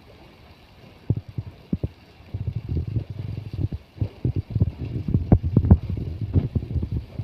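Wind buffeting the microphone in irregular low thumps and rumbles, sparse for the first couple of seconds and denser after that.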